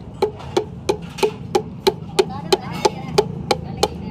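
Wooden handle tapping the crown of a piston, driving the piston and its rings through a band-type ring compressor into the cylinder bore of a Massey tractor engine block: even knocks, about three a second.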